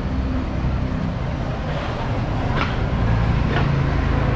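Street traffic: a steady low engine rumble with a faint hum, and two short sharp sounds about two and a half and three and a half seconds in.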